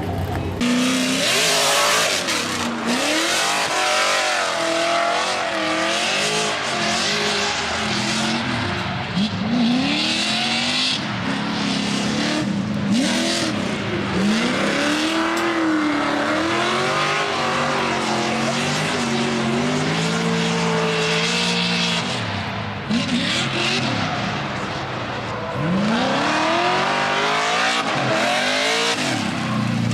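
Race car engines revving hard at a drag strip, their pitch sweeping up and down again and again, with a loud rush of exhaust and tyre noise.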